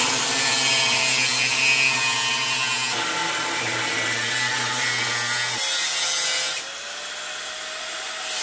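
Power tool cutting through the spot-welded steel bracing of a car body, running steadily with its motor pitch shifting as it works and dropping in level about two-thirds of the way through.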